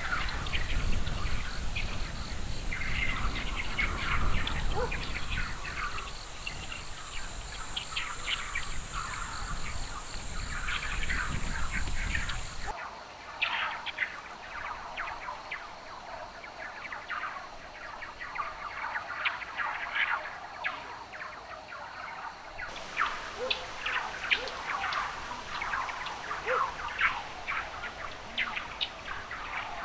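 Many small birds chirping and calling in quick short notes, with a low wind rumble on the microphone for about the first 13 seconds. The background changes abruptly twice, about 13 and 23 seconds in.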